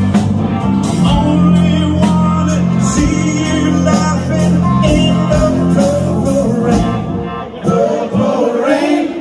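Live rock band playing: electric guitar, bass guitar and drums with a man singing, the music thinning for a moment near the end.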